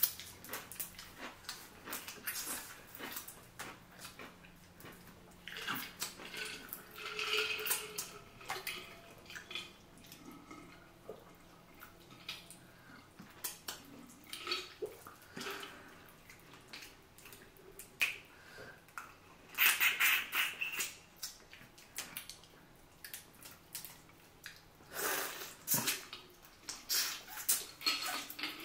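Close-miked eating of buttery seafood: wet chewing, lip smacking and sucking, with many small clicks and a few louder, longer slurps.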